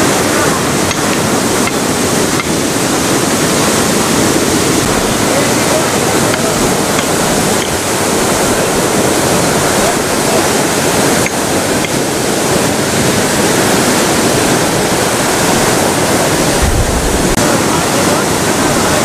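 Water gushing at full pressure from a knocked-over fire hydrant, shooting high into the air: a loud, steady rush of spray and falling water.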